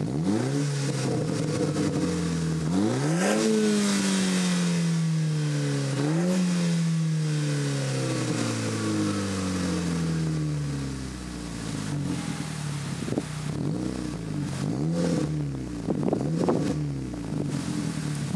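Audi TT Mk2 exhaust, its muffler deleted and replaced by a 12-inch glasspack resonator in 2.5-inch pipe, as the engine is free-revved while parked. Three sharp revs in the first six seconds each fall slowly back toward idle, followed by a few lighter blips near the end.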